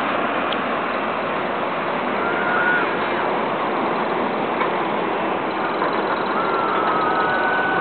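Ocean surf breaking on the beach, a steady wash of noise. Faint high calls are heard about two seconds in and again near the end.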